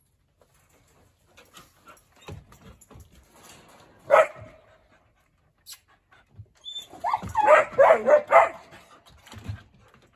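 A Treeing Walker hound puppy giving voice in his kennel: one sharp bark about four seconds in, then a run of wavering, bending yowls and whines from about seven to eight and a half seconds. Light clatter of the chain-link kennel and rustling come in between.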